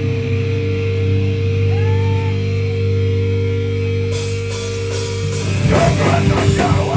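Live heavy rock band: a held, droning guitar chord rings for several seconds, then the drums and full band crash in near the end.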